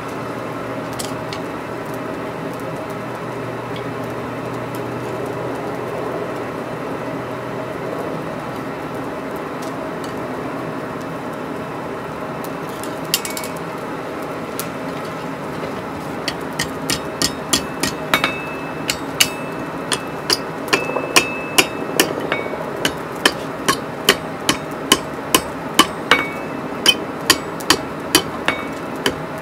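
Hand hammer striking a red-hot curled scroll of steel, the ram's horn of the hook, held in tongs on the anvil: one blow, then a few seconds later a steady run of blows about one and a half a second, each with a short ring, growing heavier. A steady hum sits underneath.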